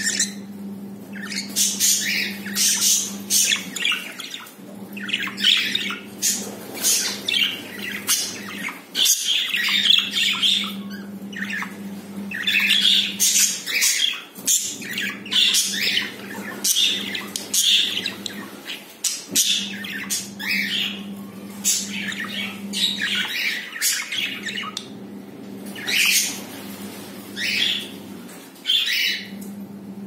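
Budgies chattering: a continuous run of short, sharp chirps and squawks. A steady low hum lies underneath.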